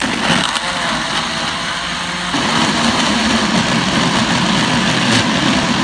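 Electric countertop blender switched on, its motor running loudly as the blades chop fresh aromatics with a little water into a spice paste; the sound shifts slightly about two seconds in.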